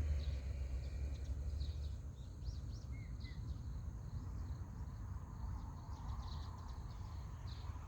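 Outdoor ambience with small birds chirping repeatedly in short high calls, over a low rumble that is heaviest for the first two seconds.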